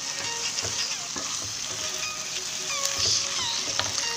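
Ridge gourd and potato pieces in poppy-seed paste sizzling as they fry in a wok. A wooden spatula stirs them, scraping and knocking against the pan.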